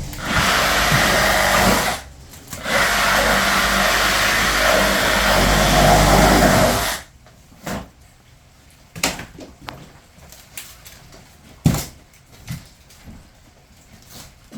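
Handheld power saw cutting into wood, run twice: about two seconds, a short pause, then about four seconds, stopping about seven seconds in. A few knocks follow.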